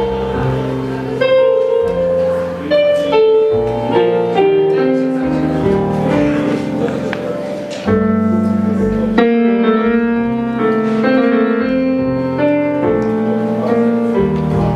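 Electronic stage keyboard played with a piano sound: a slow instrumental passage of held chords, changing about once a second.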